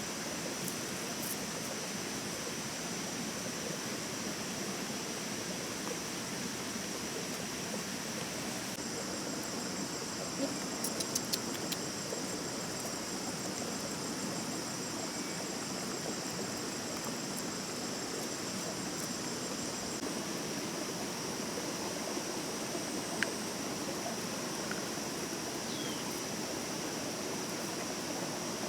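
Steady rushing of a stream flowing over rocks, with a constant high insect drone above it. A few light clicks come about ten seconds in.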